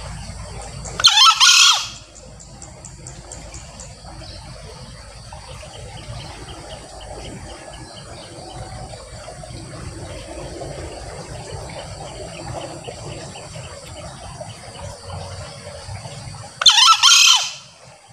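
Male green junglefowl crowing twice, about fifteen seconds apart, each crow a short, high, harsh call under a second long, over a steady background hiss.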